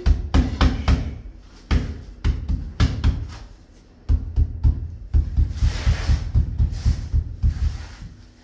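Tile being tapped down into its adhesive with a mallet: runs of quick, dull knocks with short pauses between, the last run the longest and most even.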